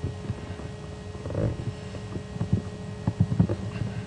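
Steady low background hum with a few scattered soft knocks and clicks.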